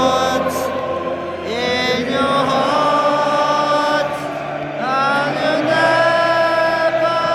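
Massed voices singing long held notes in a choral chant over music, with the pitch sliding up between phrases.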